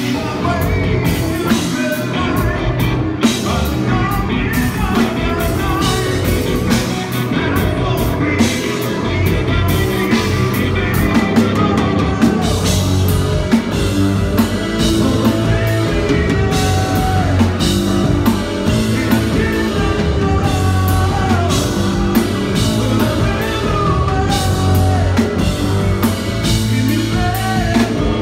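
Progressive metal band playing live: a drum kit, bass and guitar, with a male lead singer singing over them.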